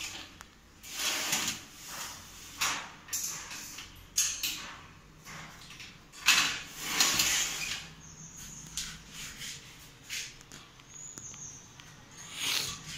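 Stainless-steel wire kitchen pull-out baskets sliding in and out on Godrej drawer slide channels, the metal wire rattling and scraping in a series of short bursts.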